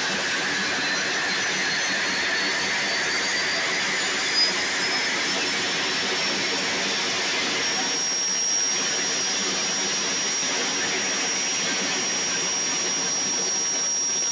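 Aircraft turbine engine running on the ground, a steady rush under a thin high whine that rises in pitch through the first half and then holds steady as the engine spools up.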